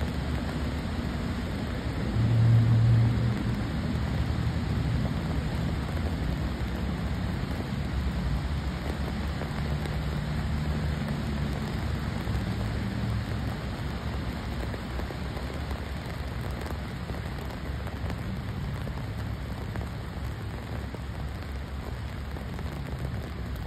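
Steady rain falling on a wet asphalt path and grass. A brief low rumble about two seconds in is the loudest moment.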